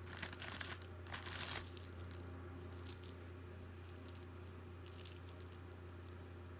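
Jewelry being handled: rustling and light metallic clinks, busiest in the first second and a half, then a few scattered clicks, over a steady low hum.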